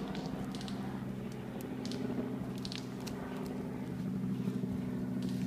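A steady low hum runs throughout, with scattered light clicks and crackles of someone moving through forest undergrowth.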